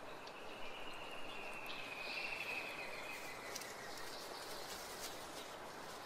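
Tropical forest ambience: a steady hiss with one long, thin high call held for about four seconds before fading, and a few faint ticks.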